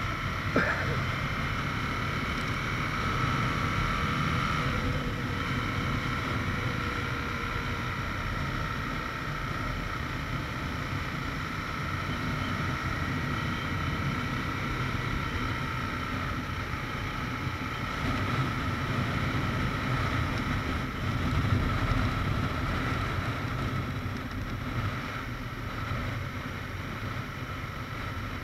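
Aprilia RSV 1000 R's V-twin engine running at road speed under steady wind noise, shifting up twice, from third through fourth to fifth gear.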